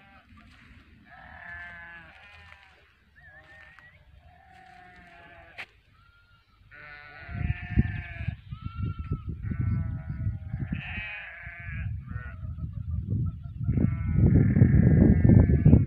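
Bleating livestock, several animals calling in short, overlapping bleats at different pitches. From about seven seconds in, a low rumble of wind on the microphone builds up and becomes the loudest sound near the end.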